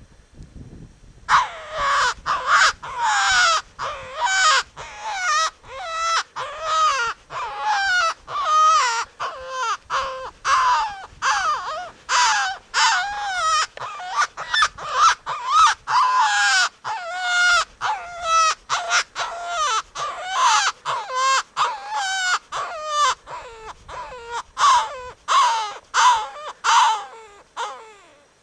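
Rapid series of loud, harsh, crow-like cawing calls from a predator call used for coyote calling, about two calls a second. Each call falls in pitch. The calls begin about a second in and stop just before the end.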